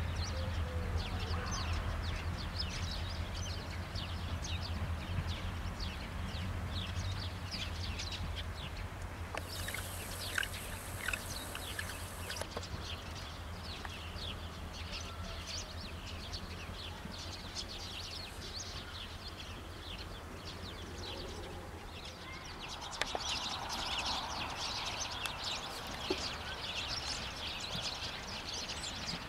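Small birds chirping busily over a low steady train engine hum, which is strongest for the first several seconds and then fades. Near the end a low rumble swells as another train comes closer.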